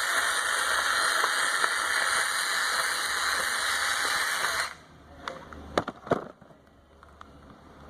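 Electric drill running with a slot-cutting bit as it cuts a slot, a steady harsh whir that stops about five seconds in, followed by a few light clicks and knocks.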